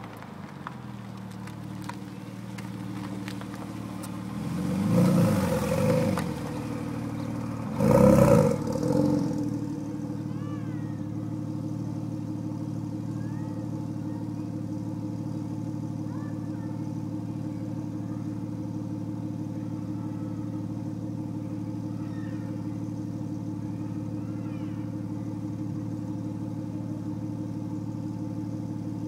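Porsche 997 Turbo's twin-turbo flat-six through a Cargraphic exhaust, close by: it is blipped twice, the second rev about eight seconds in being the loudest and shortest, then settles into a steady idle.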